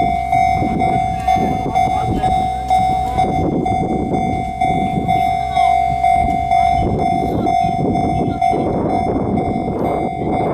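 Japanese railway level-crossing warning bell ringing, one pitched ding repeating at an even pace, over a dense background rumble.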